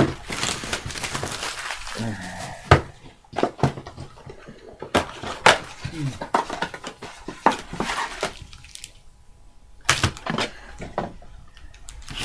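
Handling of trading cards and their packaging: a run of sharp clicks, taps and rustles, with a couple of brief murmured sounds in between.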